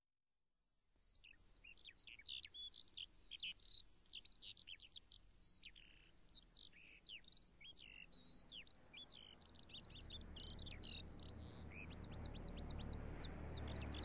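Birds chirping: a dense, busy run of short, quickly falling chirps. From about ten seconds in, a low rushing noise swells up beneath them.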